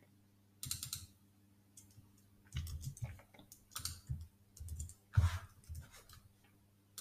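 Computer keyboard keys and mouse clicks in scattered bursts, as a transaction hash is pasted into a search box and submitted, with one sharper click about five seconds in.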